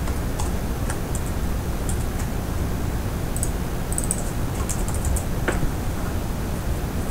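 Computer keyboard typing: scattered, irregular key clicks in short runs, over a steady low background hum.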